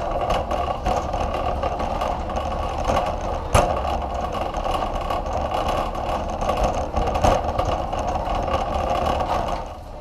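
Wire shopping cart being pushed along a store floor, its wheels and basket rattling steadily, with a few sharper knocks; the rolling stops shortly before the end.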